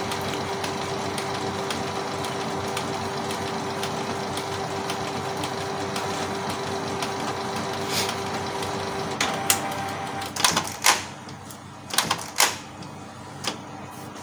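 Canon MP287 inkjet printer running its automatic printhead cleaning cycle, which it does after an error has been cleared: a steady motor whir with a held tone for about nine seconds, then a series of sharp clicks and clacks as the mechanism moves and stops.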